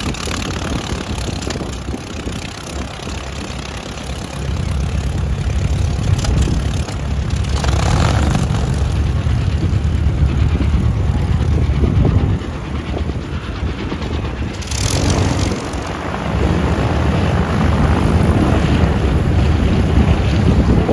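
Kaman HH-43 Huskie helicopter in flight, its intermeshing twin rotors making a steady low rotor beat. It grows louder about four seconds in, eases briefly past the middle, then swells again as the helicopter comes closer near the end.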